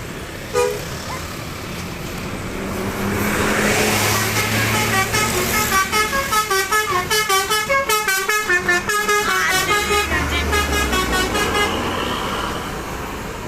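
Telolet bus horn, a multi-tone musical horn, playing a rapid melody of stepped notes, about five a second, for about five seconds, over a passing bus's engine. A short single honk comes about half a second in.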